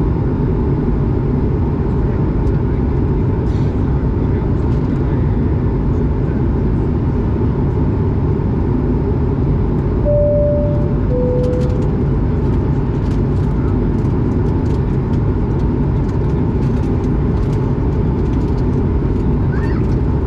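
Steady in-flight cabin noise of an Airbus A220, the drone of its Pratt & Whitney PW1500G geared turbofans and the rush of air past the fuselage. About ten seconds in, a two-tone cabin chime sounds, high then low.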